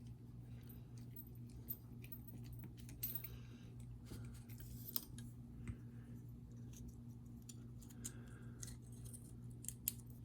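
Faint, scattered clicks, taps and short scrapes of a small screwdriver and metal knife parts as a pocketknife's tiny scale screws are fitted during reassembly, over a steady low hum.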